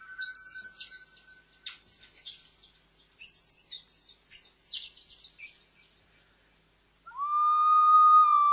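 High, rapid bird chirps and twitters, several overlapping, for about five seconds. A held ocarina note fades out at the start, and after a short pause an ocarina begins a new long held note near the end.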